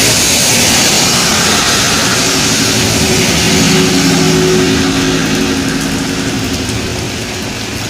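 A motor vehicle driving past on a wet road in the rain: a loud hiss of tyres through water swells at the start and fades, and the engine's steady hum comes through in the middle.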